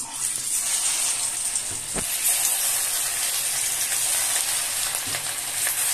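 Rice-and-potato pakora batter deep-frying in hot oil in a kadhai: a steady sizzle, with a single sharp knock about two seconds in.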